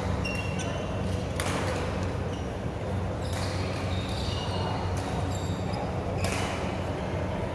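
Badminton rackets striking a shuttlecock: four sharp hits spaced one to two seconds apart, with short high squeaks of court shoes between them and a steady low hum underneath.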